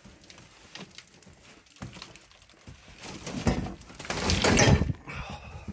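A person clambering over clutter: scuffing, rustling and knocking of debris underfoot and under hand, scattered at first and then loudest and busiest about three to five seconds in.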